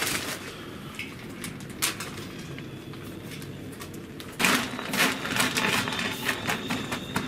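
Hardwood pellets clicking and rattling as a hand pushes and spreads them along a pellet grill's hopper, the clatter getting denser and louder about halfway through.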